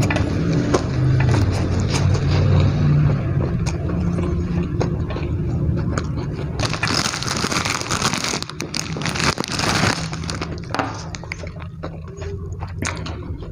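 Close-miked eating sounds: a man chewing raw lettuce and fried chicken with rice, with wet crunching and mouth clicks. A louder, crisp crackling stretch runs from about seven to ten seconds in.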